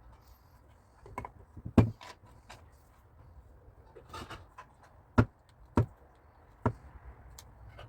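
Handling of the stainless steel whisk and strainer parts: a few sharp clicks and knocks, the loudest about two seconds in, with a short scraping rustle in the middle.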